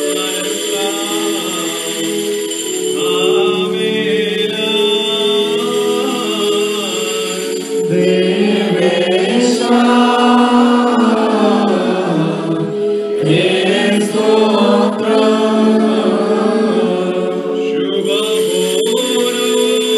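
Choir chanting a Malankara Orthodox liturgical hymn, with long held notes.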